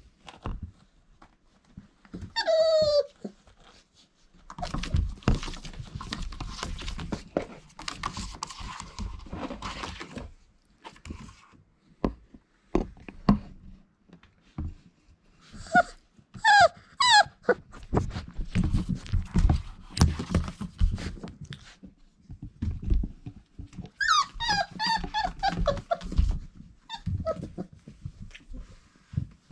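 Irish Setter puppies whining and yipping in short high-pitched calls, in three bouts, the last one longest. Between the calls, rustling and scuffling as the puppies scramble over fleece bedding, with a few light knocks.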